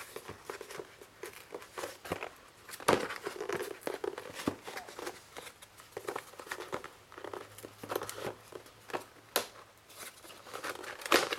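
A cardboard shipping box being opened by hand: tape and flaps pulled and worked, giving irregular crinkling and scraping with a few sharper snaps. The loudest come about three seconds in, around nine seconds in, and near the end.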